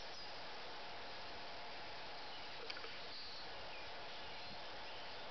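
Steady outdoor background noise with a few faint, short high chirps and a single light click a little past halfway.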